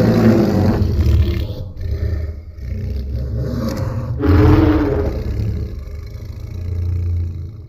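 Godzilla-style monster roar sound effect: a long, deep roar over a heavy low rumble. It swells again about four seconds in, then fades out.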